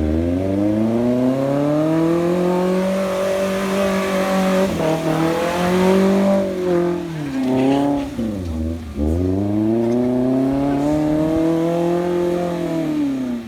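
Off-road 4x4's engine revved hard and held at high revs, dipping and climbing back again twice in the middle, then falling away at the end.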